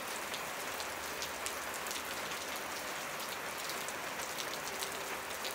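Steady rain: an even hiss with many individual drops ticking through it.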